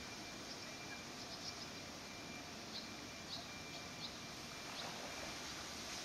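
Faint steady outdoor background noise with a handful of very short, high chirps scattered through the first two-thirds, over a faint thin steady tone.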